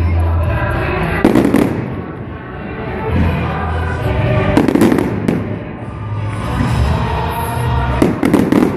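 Aerial fireworks bursting overhead, with sharp bangs about a second in, around five seconds in, and again near the end. Music plays throughout underneath.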